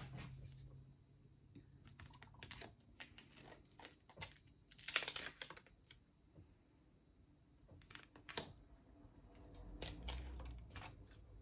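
Small glossy oracle cards being handled: faint, scattered soft clicks and brief rustles of card sliding on card as they are flipped through, with a longer rustle about five seconds in.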